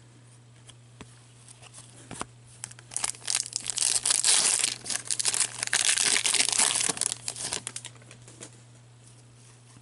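Foil trading-card pack wrapper being torn open and crinkled by hand: a few light clicks, then about five seconds of loud, dense crackling that dies away near the end.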